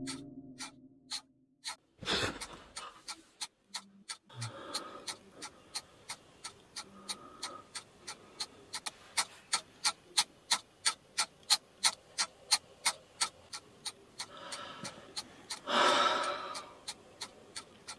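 A clock ticking, loud and even at about three ticks a second, under a man's heavy breathing and gasps. There is a sharp gasp about two seconds in and a long, loud gasp near the end as he jolts awake.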